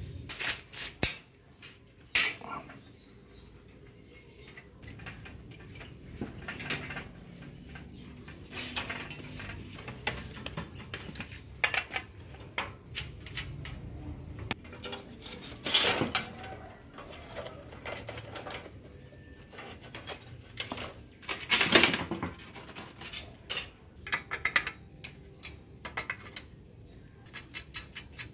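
Metal tools and rusty bicycle parts clinking, scraping and knocking as an old steel bicycle is taken apart. The clinks come on and off, with a few louder clanks along the way.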